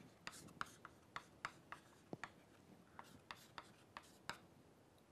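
Faint chalk writing on a blackboard: a quick run of light taps and short scratchy strokes as letters and symbols are chalked, stopping a little over four seconds in.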